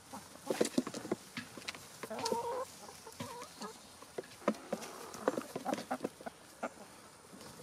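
Chickens pecking at food in quick, irregular taps, with a short clucking call a couple of seconds in.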